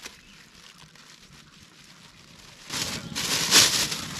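Clear plastic bag rustling and crinkling as it is handled and pulled open. It is faint at first, then loud crinkling starts almost three seconds in.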